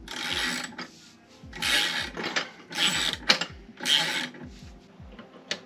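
Britool ratcheting spanner clicking in four quick runs, about a second apart, as it is worked back and forth to run the bolts on the locomotive's brake hanger.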